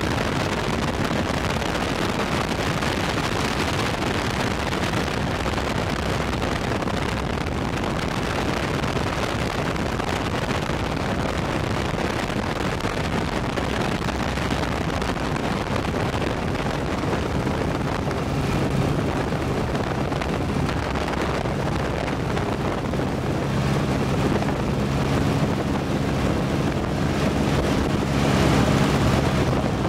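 Steady wind rush on the microphone over the drone of an aircraft engine in flight, heard from the camera aircraft. A steady low engine tone comes through more plainly in the second half, loudest near the end.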